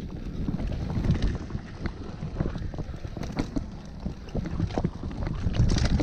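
Mountain bike descending a dirt trail at speed: wind buffeting the mounted camera's microphone and tyres rumbling over the dirt, with the bike rattling and knocking sharply over bumps, most densely near the end.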